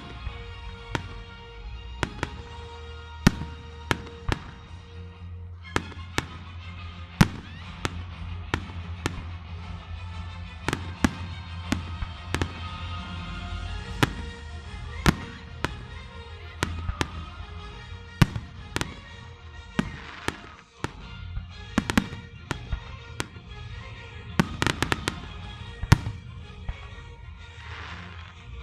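Aerial fireworks shells bursting in sharp bangs, irregularly a second or two apart, with a quick rattle of bangs near the end. Music plays underneath throughout.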